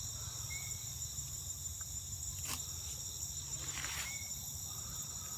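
Steady, high-pitched chorus of insects shrilling without a break, with two faint clicks near the middle.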